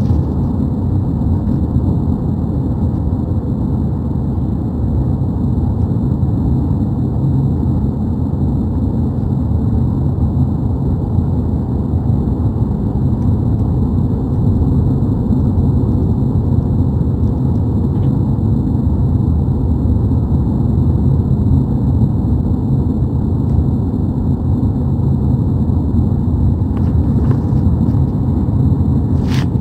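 Steady low rumble of road and engine noise inside a moving car, with a single sharp click near the end.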